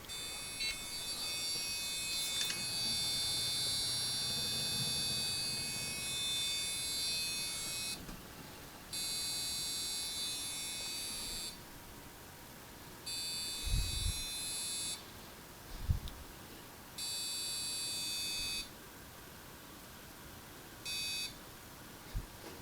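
High-pitched electrical buzz from inside a desktop PC, coming and going: one long stretch, then several shorter ones, the last very brief. This is the unexplained noise whose cause the owner is trying to find. A couple of low bumps fall between the buzzes.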